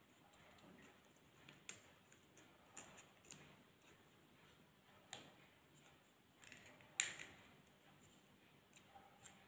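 Faint crackles and clicks of dry areca palm-sheath petals being handled and tied onto a wire stem with thread, with a sharper click about seven seconds in.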